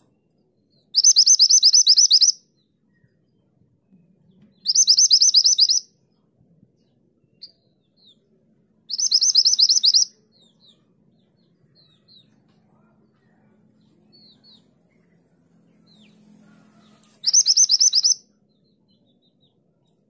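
A minivet calling: four bursts of rapid, high-pitched repeated notes, each lasting about a second and spaced several seconds apart, the 'tulit tulit' chattering call.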